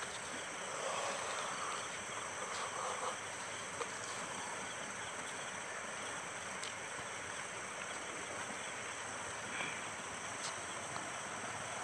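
Quiet steady background hiss with a few faint soft clicks from bare wires being handled and twisted apart in a water pump's plastic terminal box.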